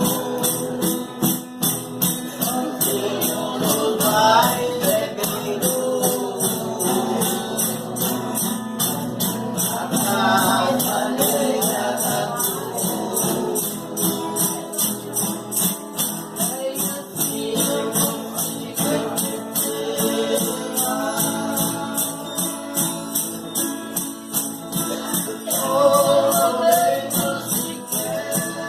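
Voices singing a folk song over a tambourine shaken and struck in a steady, even beat.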